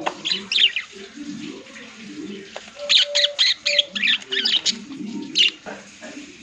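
Pet lovebirds chirping in short, sharp, high calls: a couple near the start, then a quick run of several from about three seconds in.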